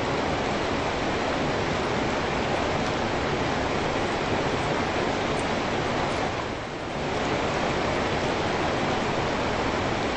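Steady rain, an even hiss of many drops, dipping briefly in level a little past halfway.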